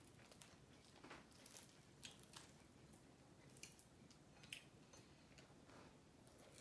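Faint, scattered crackles of crisp fried-chicken skin being torn off a whole fried chicken by hand, with soft chewing and squishing.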